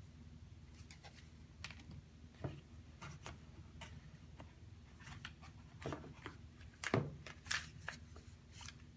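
Apple Watch cardboard box and inserts being handled: scattered light clicks and rustles, a knock about seven seconds in, then a few more rustles.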